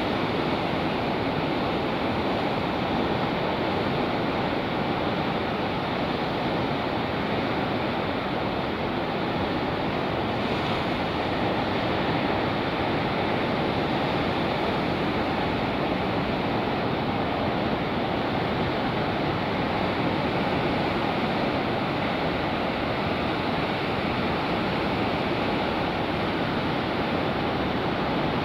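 Pacific surf breaking over coastal rocks, a steady rushing wash of white water with no pauses. It sounds dull, with little hiss, because tape over the microphone cuts the wind.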